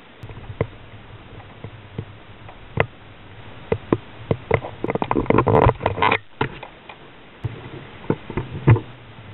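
Irregular knocks and clicks of a fishing rod and reel being worked from a kayak while a fish is hooked, thickening into a dense run of clicks about five to six seconds in.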